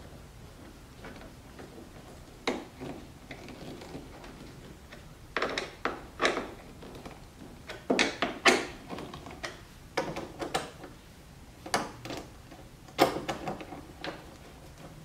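Irregular sharp clicks and knocks, about ten of them, as small screws and plastic bumper trim parts are handled and fitted by hand under the rear of a C7 Corvette.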